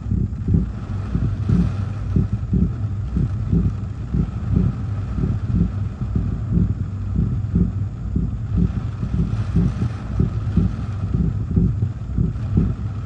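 Inside a car during a hurricane squall: the car is running, with a steady low hum and a regular low throb of about three beats a second. The windshield wipers sweep while wind and rain beat on the car.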